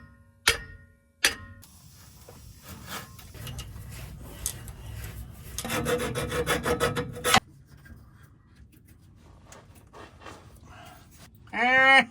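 Scraping and rubbing strokes of a hand tool cleaning old rubber off a part, with a few sharp knocks at the start and the hardest scraping about six to seven seconds in. A loud wavering pitched sound begins just before the end.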